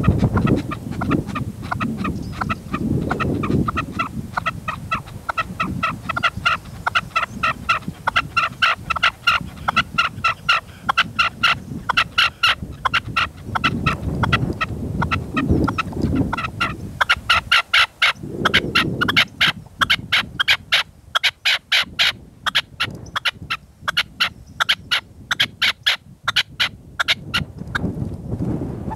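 Red-legged partridge calling in a long, fast run of repeated notes, several a second, growing sharper in the second half and stopping shortly before the end. Gusts of wind rumble on the microphone in between.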